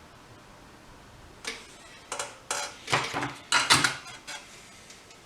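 Small metal hand tools clinking and tapping against metal during hand soldering: a run of about eight short, sharp clinks from about a second and a half in, most clustered and loudest about three to four seconds in.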